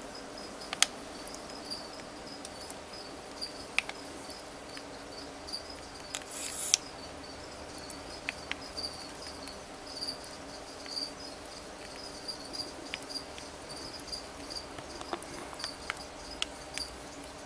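High, steady insect chirping in a fast pulsing trill over a low steady hum, with a few sharp clicks and a brief rustle about six and a half seconds in.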